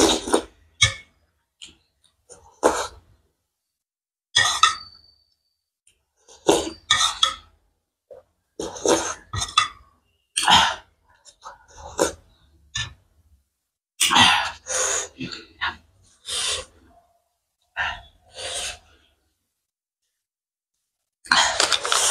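Slurping spicy jhol soup from a spoon: short, noisy sips about every one to two seconds with silent gaps between, and a longer run of slurps near the end.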